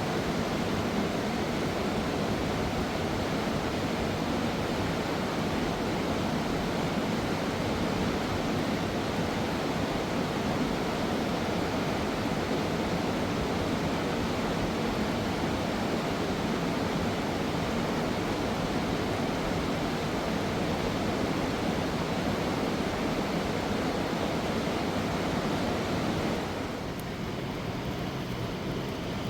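Fast mountain river rushing over rocks: a steady rush of water that eases slightly near the end.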